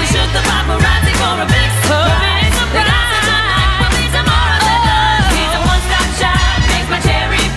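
Pop music with singing over a steady, driving beat.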